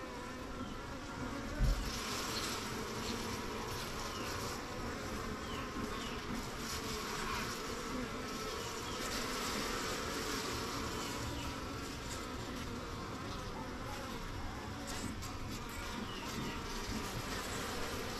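A colony of honey bees buzzing steadily on the exposed comb of an opened wooden hive box. A brief low knock comes about one and a half seconds in.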